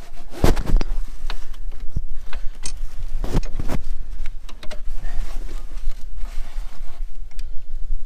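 Irregular knocks and metallic rattles of a new emergency brake cable being handled and moved into place, over a steady low rumble.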